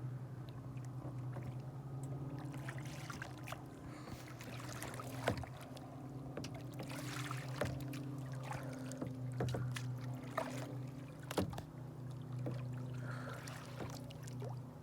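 Kayak on the water: small splashes and scattered knocks against the hull, several of them sharp, over a steady low hum.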